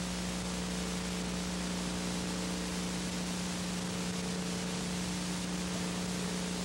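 Steady hiss of recording noise with a low, constant electrical hum underneath, unchanging throughout.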